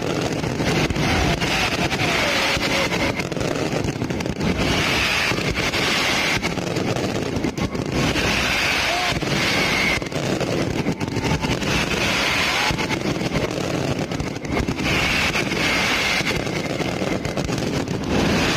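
Fireworks crackling and banging without a break, many small reports overlapping, with the voices of a large crowd throughout.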